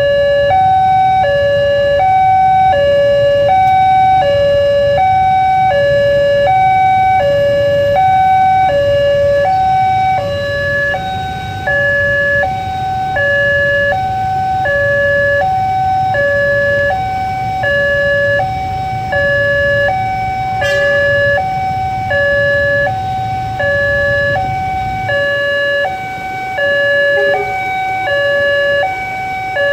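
Railway level-crossing warning alarm: an electronic two-tone signal, alternating evenly between a lower and a higher note, each held about half a second, sounding while the barriers are down.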